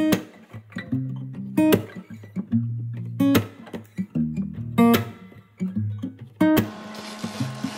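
Background music: guitar, with a sharp plucked note or chord about every second and a half over held bass notes. A faint steady hiss joins near the end.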